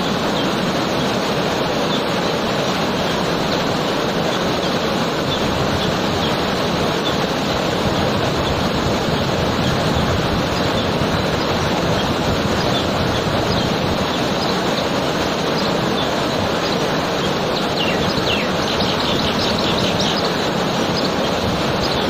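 Waterfall pouring over rocks: a loud, steady rush of falling water. Late on, a bird chirps rapidly for a couple of seconds.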